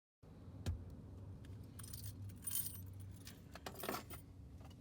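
Light metallic jingling in two short bursts, with scattered clicks and a thump near the start, over a low steady hum.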